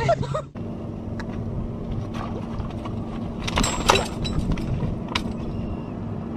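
A steady low engine hum, like a motor idling, with a few scattered clicks and a louder cluster of knocks a little before four seconds.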